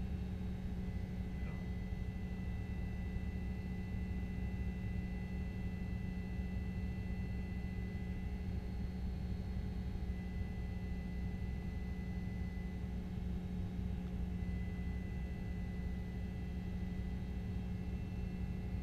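A steady low hum with low rumble beneath it and a few faint, thin, high steady tones above it, unchanging throughout.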